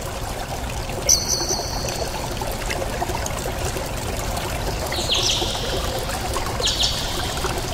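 Steady trickling, rushing outdoor noise by a river, with short high-pitched bird calls about a second in and twice in the second half.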